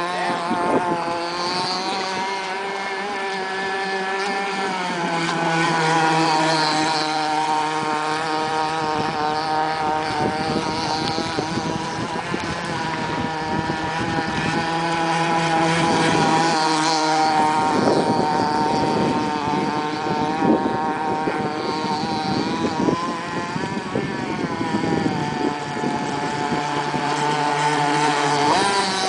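Custom RC speedboat fitted with a 42 mm propeller, running fast across the water: its motor gives a continuous high whine with many overtones, the pitch shifting several times, with stretches of hissing noise mixed in through the middle.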